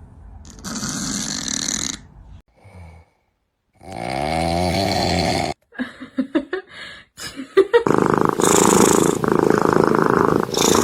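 Sleeping cats snoring, in short separate clips cut one after another. There is a pitched, wavering snore about four seconds in, and the loudest is a long stretch of snoring near the end.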